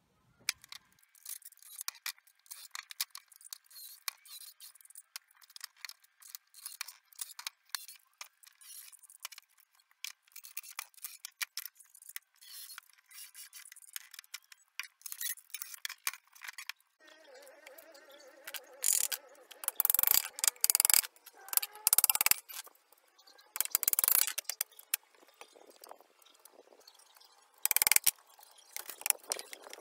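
Wood and tools being handled, with many small clicks and scrapes. Then a hammer drives nails into pallet boards, with several loud blows in the second half.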